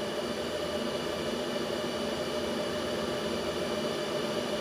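HP ProLiant DL380 G4 server's cooling fans running steadily with the lid off: an even rush of air with several constant whining tones in it.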